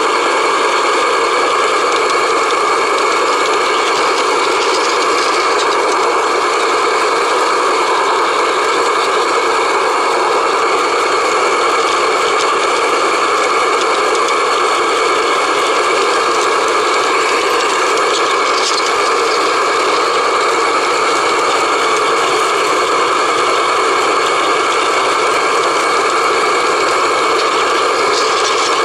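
Model train running steadily on its track, heard up close from a camera riding on it: a steady mechanical whine from its motor and gears over the rattle of the wheels on the rails.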